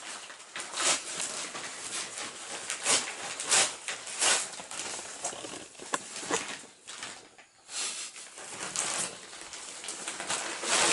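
Gift wrapping paper rustling and crinkling in irregular bursts as a child handles opened presents, with a brief quieter lull past the middle.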